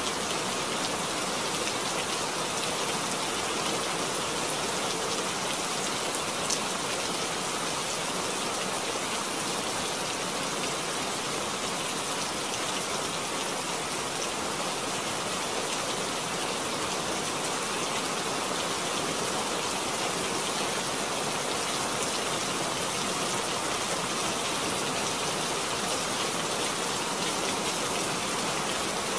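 Steady rain falling, an even hiss that does not let up, with a single sharp tap about six and a half seconds in.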